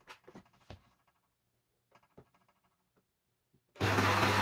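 Siemens EQ.5 espresso machine being tested: a few light clicks as its button is pressed, then near the end its pump starts suddenly and runs loudly with a steady hum and hiss.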